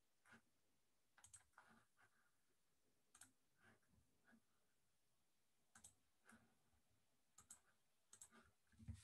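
Near silence with faint, irregularly spaced clicks and taps, about a dozen, the loudest a click with a low thump near the end.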